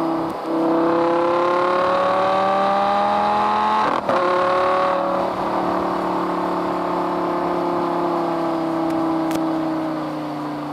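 Lamborghini Gallardo LP560-4's V10 running through a Fabspeed Supersport exhaust: it pulls hard with a rising note, breaks off sharply about four seconds in as it shifts up, then carries on at a steady, slowly falling pitch.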